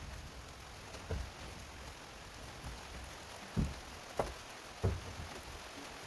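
Steady hiss of rain falling, with four dull thumps, one about a second in and three more in quick succession past the middle.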